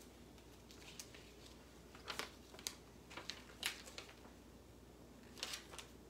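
Beaten egg cooking in the heated tube of a Rollie vertical egg cooker, giving faint scattered sizzling pops and crackles. The pops come in small clusters a few seconds in and again near the end, while the cooked egg rises out of the top of the tube.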